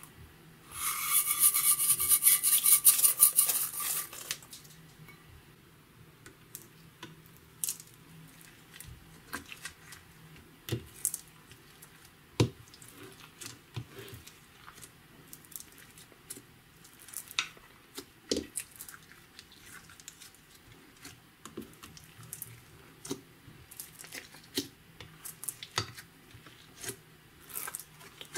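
Slime being stirred and pressed in a container, with scattered sticky clicks and pops. About a second in, a loud fast rattle lasts about three seconds.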